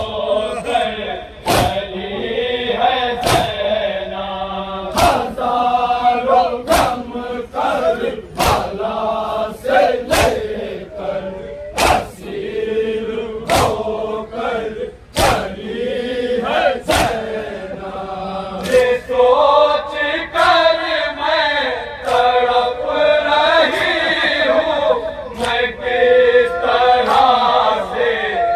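Voices chanting a Shia noha (mourning lament), with a sharp chest-beat (matam) strike keeping time about every 1.7 seconds. The strikes grow fainter in the last third while the chanting carries on.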